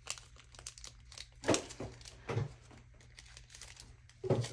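Plastic crinkling and rustling as diamond-painting materials are handled: several short crinkles, the loudest about a second and a half in and another near the end, with faint clicks between them.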